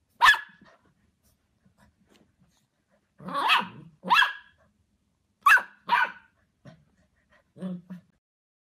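Puppy giving short, high-pitched barks: one, then two quick pairs, and a softer, lower one near the end.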